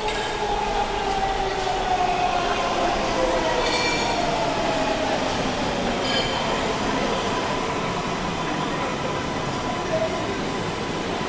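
MARTA rapid-transit subway train pulling into the station, its motor whine falling steadily in pitch over the first six seconds as it slows, over the rumble of wheels on rail.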